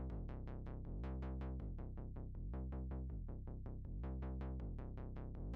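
Quiet electronic background music: a synthesizer pattern of quick, evenly repeating notes over a steady low bass.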